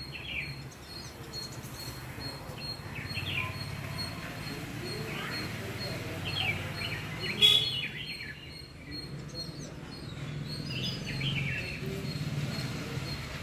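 Small birds chirping in short scattered phrases over a steady low background rumble, with a sharp click about halfway through.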